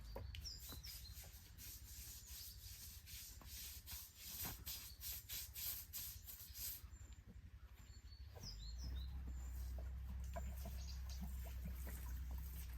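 A series of short rubbing or scraping strokes, densest in the middle, over a low steady rumble, with a few brief bird chirps.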